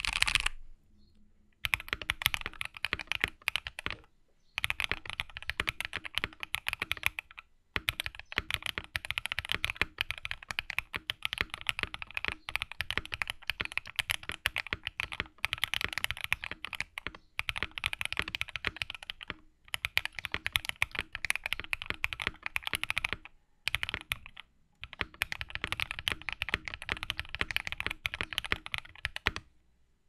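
Fast typing on a gasket-mounted Freebird 60 mechanical keyboard with MMD Cream linear POM switches, an FR4 plate, ABS keycaps, a tape mod and polyfill. The keystrokes come in quick streams of clicks, broken by short pauses.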